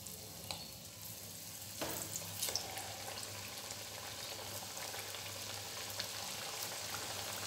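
Cabbage and moong dal patties deep-frying in hot oil in a kadhai: a steady sizzle that gets louder about two seconds in as more patties go into the oil, with scattered small pops.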